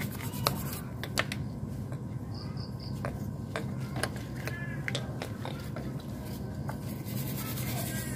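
Hand work on motorcycle engine parts: short irregular clicks, taps and light scrapes over a steady low hum.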